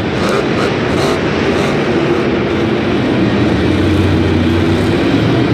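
Monster truck's engine running hard as the truck drives and turns on the dirt, a steady loud drone that swells slightly about two thirds of the way in.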